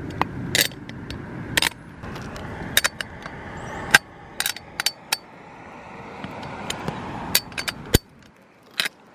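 Ratchet wrench clicking in short, irregular runs as it tightens the bolts on a metal antenna-mast roof mount, over a steady background rush, with a single sharp knock about eight seconds in.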